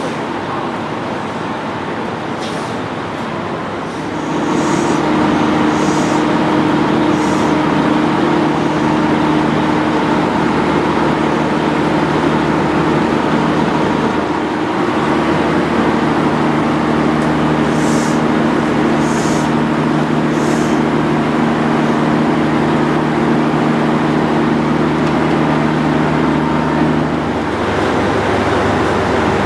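KiHa 66/67 diesel railcar standing at a platform, its engine running at idle with a steady hum of several tones. The hum gets louder about four seconds in and eases again near the end, with a few short high hisses along the way.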